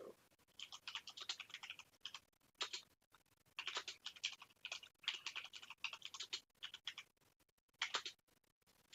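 Typing on a computer keyboard: several short runs of quick key clicks with brief pauses between them.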